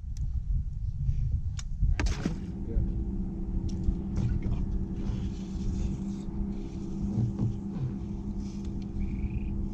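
Bass boat's bow-mounted electric trolling motor starting about two seconds in, after a couple of sharp clicks, then running with a steady hum over a low rumble.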